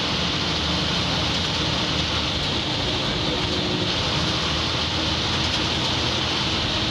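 MSRTC bus's diesel engine running steadily at cruising speed, with road noise, heard from inside the driver's cabin.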